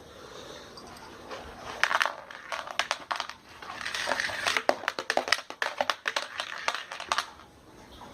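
A cat pawing at a basket to get a penny out of it: an irregular flurry of scratching and rattling clicks, starting about two seconds in and stopping about a second before the end.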